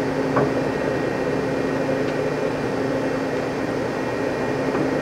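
Sharp 1660C engine lathe running steadily at a low spindle speed of about 75 RPM: an even hum from its 7.5 hp main motor and headstock gearing, with one faint click about half a second in.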